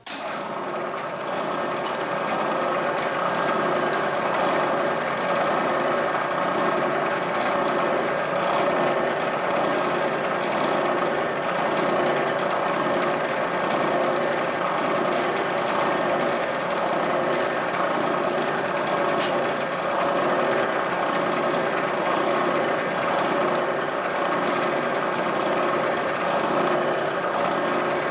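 A machine tool in a metalworking shop, a drill press or milling machine, running steadily with a dense, even grinding noise that starts abruptly and does not let up.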